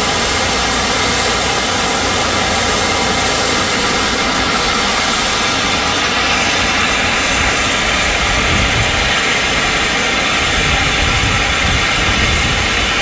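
Steady, loud hiss of steam venting from the Stockton Flyer, a steam-locomotive sculpture, during its steam show.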